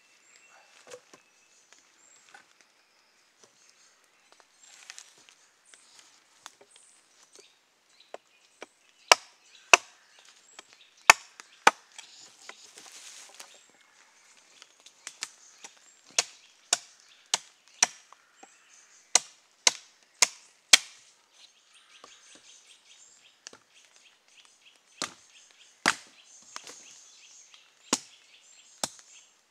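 Hatchet chopping and splitting a partly rotten ash log into firewood and kindling: sharp wooden chopping strikes in irregular runs, about two a second at their quickest, the loudest about ten seconds in.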